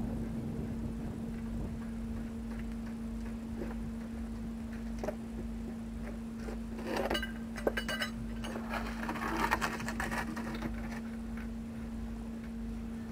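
Scattered clicks and knocks from hand work at a truck's dual rear wheels, bunched together a little past the middle. Under them run a steady low hum and a wind rumble on the microphone.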